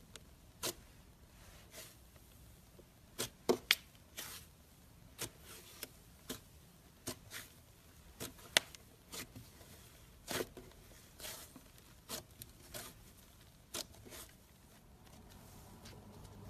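Slime being handled, squeezed and poked, giving a string of short, irregularly spaced clicks and squelchy pops with quiet gaps between them.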